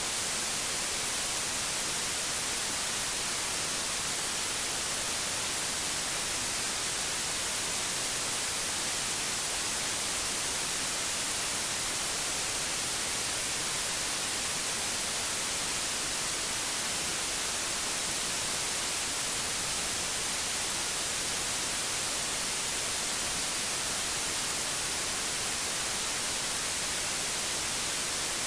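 Steady, unbroken white noise: an even hiss across the whole range, brightest in the highs, with no change or events.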